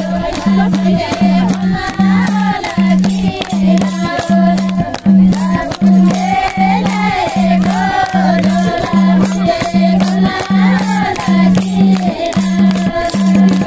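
Nepali panche baja band playing: a wavering reed melody over a steady low beat a little over twice a second, with clashing cymbals.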